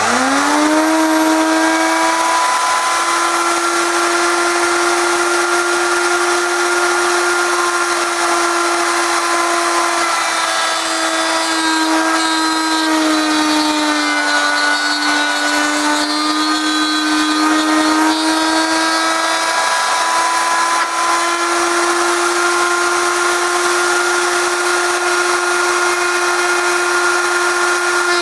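Router in a homemade router table spinning up with a rising whine, then running at a steady high whine. Its pitch sags for several seconds in the middle, as under load from cutting into wood, then recovers.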